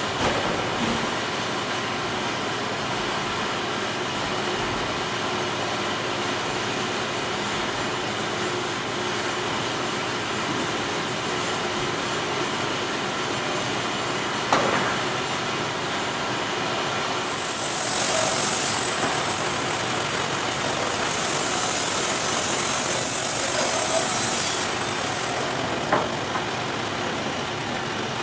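Wood-Mizer LT50 sawmill running steadily while a walnut log is handled on its bed, with a few short knocks and two stretches of high hissing in the second half.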